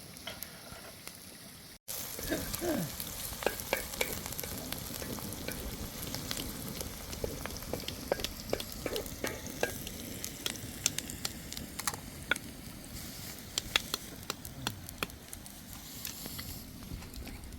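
Steady sizzling with many scattered sharp crackles, as of food frying in a hot pan.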